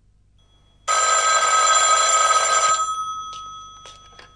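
Rotary desk telephone ringing: one loud ring of about two seconds that fades away, then a few sharp clicks as the handset is lifted from its cradle.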